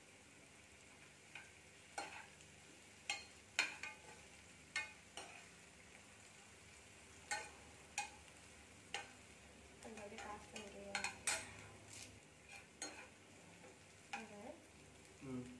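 A spatula scraping and knocking against a pan at irregular intervals as sprouted green gram is stirred while it cooks, over a faint frying sizzle.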